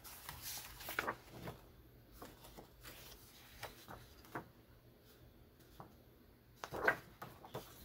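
Loose book pages and paper prints rustling and swishing as they are handled and turned over, in short irregular bursts, with a louder swish near the end.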